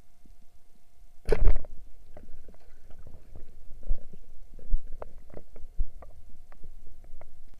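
Muffled underwater noise heard through a camera's waterproof housing: a loud rushing thump about a second and a half in, then scattered clicks and knocks, over a faint steady hum.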